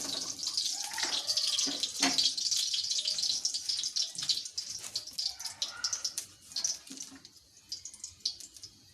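Ghee sizzling and crackling in a hot kadai, dying down about seven seconds in.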